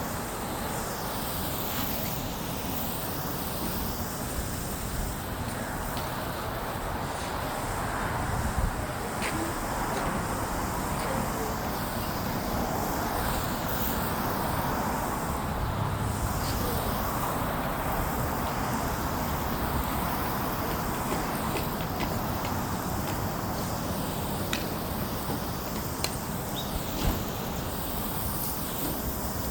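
Steady outdoor traffic noise, an even rumble and hiss with a few faint clicks.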